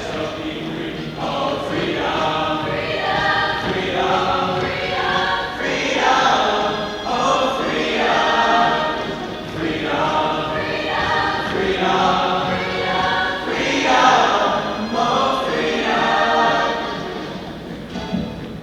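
High school choir singing in phrases, many voices together.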